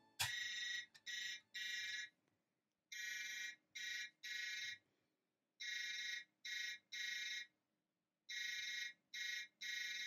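Toy dump truck's electronic sound module playing through its small speaker: a faint, high-pitched beeping in groups of three (long, short, long), repeating four times about every two and a half seconds.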